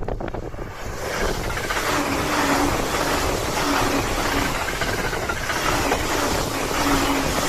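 JR East 209 series electric train running at close range: a steady rumble of wheels on rail that builds over the first second or two, with a low tone that comes and goes.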